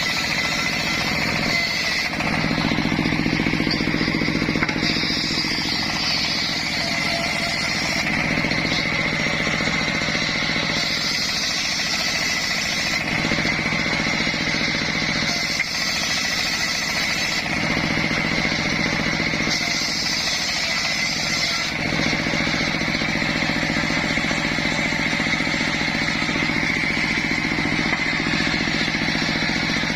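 Homemade circular sawmill running continuously, a steady high whine over a low machine drone, sawing waru (sea hibiscus) wood.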